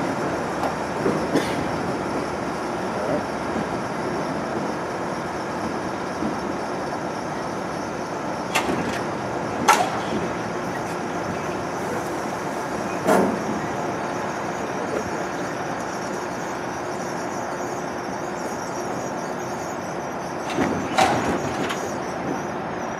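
R62A subway train rolling slowly over yard track, a steady rumble of wheels on rail. A few sharp clanks break through it, about halfway in and again near the end.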